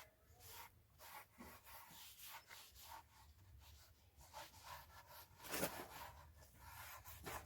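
Faint, irregular rubbing strokes over the surface of a black walnut slab, with a sharper brushing sound about five and a half seconds in and another near the end.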